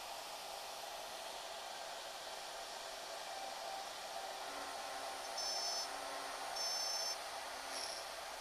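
Shaper Origin handheld CNC router running as it cuts, a steady whooshing hiss. Two short high-pitched whines rise over it about five and six and a half seconds in, with a briefer one near the end.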